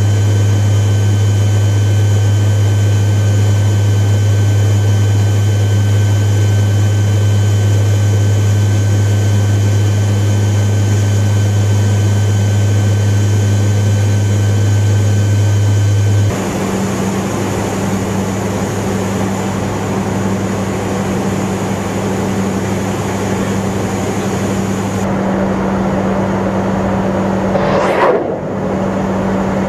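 Steady drone of turboprop aircraft engines and six-bladed propellers heard inside the cabin, a deep hum with fainter steady whining tones above it; the tone changes abruptly about halfway through. A short whoosh comes near the end.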